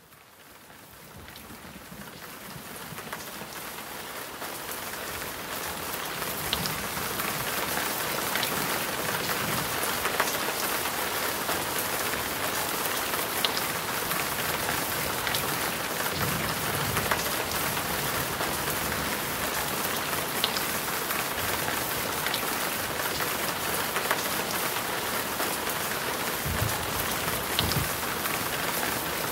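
Heavy rain pouring down steadily, fading in over the first several seconds, with many small sharp ticks of drops striking hard surfaces.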